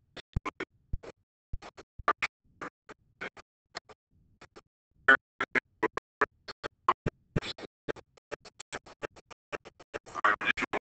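Badly broken-up audio: a man's speaking voice chopped into short fragments by rapid, irregular dropouts, heard as a stream of clicks and crackles with no words to make out.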